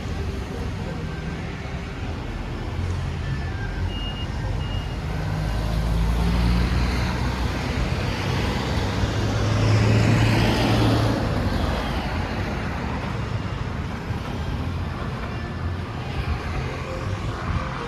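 A motor vehicle passing along the street over steady traffic noise, its low engine rumble and tyre noise growing louder to a peak about ten seconds in, then fading away.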